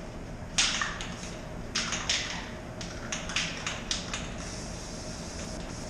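Aerosol can of Rust-Oleum matte clear enamel: the mixing ball clacks inside the can in a string of sharp knocks as it is shaken, then a steady spray hiss starts about four seconds in as the clear coat goes onto the fuel tank.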